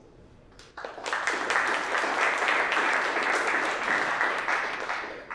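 Audience applauding, many hands clapping together. It starts suddenly about a second in and dies away near the end.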